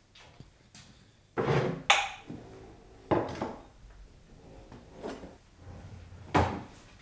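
Kitchen crockery clatter while tea is made: mugs and a cupboard handled on a worktop, about five separate knocks, one with a short bright clink.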